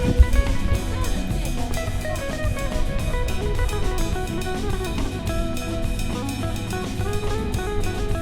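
Music with a drum kit and guitar playing a steady beat.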